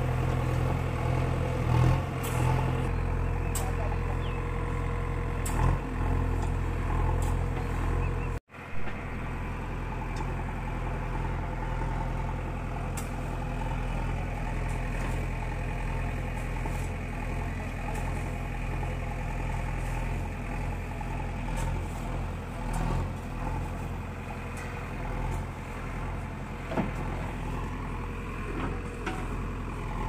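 JCB backhoe loader's diesel engine running steadily, with a few short knocks and scrapes of soil being dumped and spread with hand hoes. The sound cuts out for an instant about a third of the way in.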